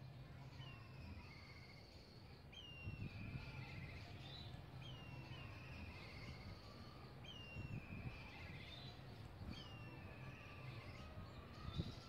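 Black kites calling again and again, about six calls. Each is a thin whistle sliding down in pitch, then a quavering trill. A faint low hum and a few soft thumps run underneath.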